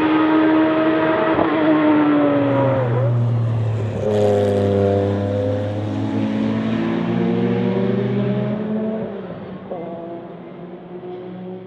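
Porsche 962 race car's turbocharged flat-six at high revs. Its pitch drops about three seconds in, there is a short sharp burst of noise about a second later, and then it climbs through several gear changes and fades away near the end.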